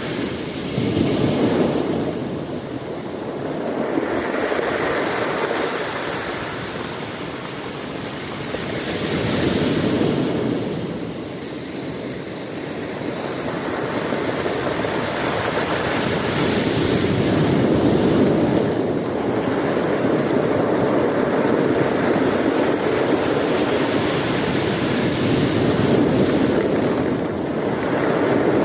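Ocean waves breaking and washing on the shore in a steady rushing surf that swells and ebbs every several seconds.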